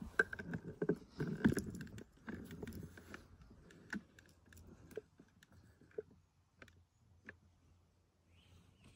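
Crunching and rubbing handling noise from a phone being moved and panned, busiest in the first three seconds, then thinning to a few faint scattered clicks.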